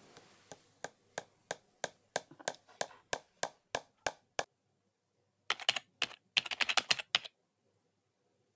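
Keyboard-typing-style clicks: sharp single clicks about three a second for roughly four seconds, a pause, then a quick flurry of clicks.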